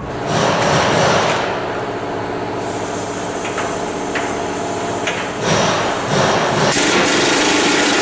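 Power tool noise while the exhaust pipe clamps are worked on: one burst of about a second near the start and a longer run over the last two and a half seconds, with a couple of sharp clicks between them over a steady hum.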